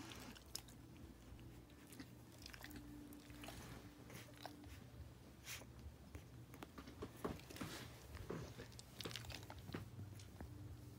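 Very quiet room tone: a steady low hum with scattered faint clicks and soft rustles, the small sounds of sleeping newborn puppies stirring on fleece blankets.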